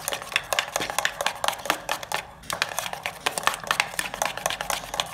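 Metal spoon beating cake batter in a stainless steel bowl, making rapid clicks and scrapes against the bowl's sides, with a brief pause about two seconds in.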